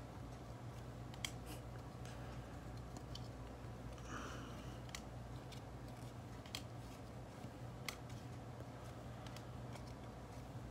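Stack of baseball trading cards being flipped through by hand: faint scattered clicks of card edges and a soft slide of card on card about four seconds in, over a low steady hum.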